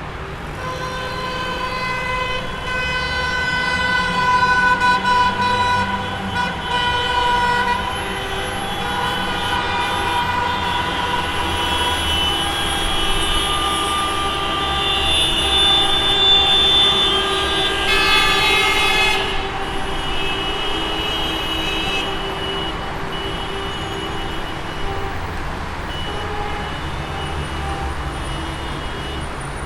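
Traffic jam: many car horns honking in long, overlapping blasts over the low rumble of engines and passing cars. A loud horn blast comes about eighteen seconds in, and the honking thins out toward the end.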